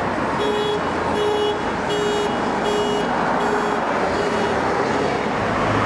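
An electronic warning beeper sounds six evenly spaced beeps, a little more than one a second, then stops about four and a half seconds in, over steady street traffic noise.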